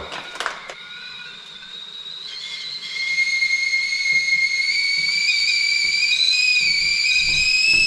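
Stovetop whistling kettle coming to the boil: a high whistle that swells over the first few seconds, then holds steady. A few light clicks right at the start.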